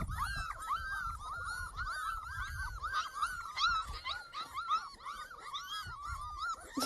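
Dog whining: a rapid run of short, high-pitched whines, each rising and falling, about four or five a second.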